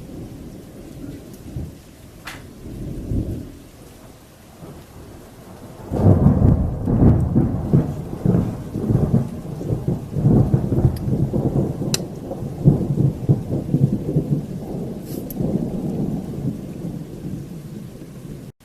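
Thunder in a heavy storm: a low rumble that breaks into a loud rolling peal about six seconds in and slowly dies away, with rain falling.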